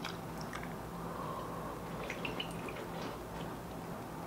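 Quiet room tone with a faint low hum and a few faint, soft small clicks.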